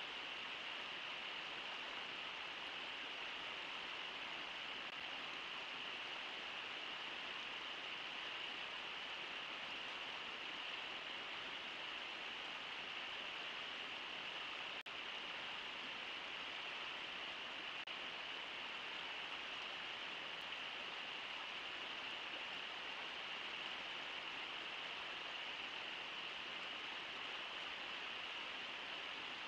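Steady rush of river water flowing past the riverbank, even and unbroken.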